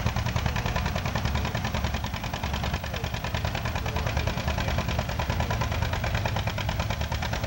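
1950 John Deere A's two-cylinder engine pulling a weight-transfer sled under load, a steady, even popping beat.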